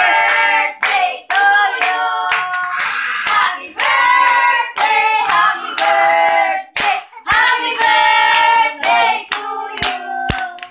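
Several people singing together while clapping their hands.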